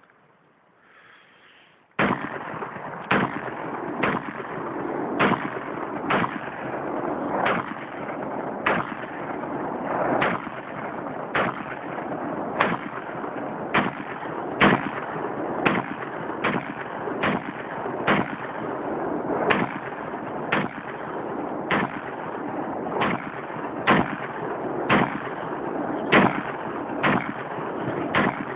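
Saiga .223 semi-automatic rifle fired rapidly, a long string of sharp shots at slightly uneven spacing, roughly one to two a second, starting about two seconds in.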